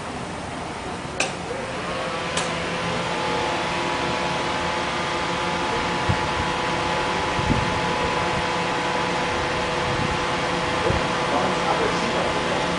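Bench-mounted Isuzu 4JB1 four-cylinder diesel engine running steadily. Its speed rises a little about two seconds in and then holds. Two sharp clicks come near the start.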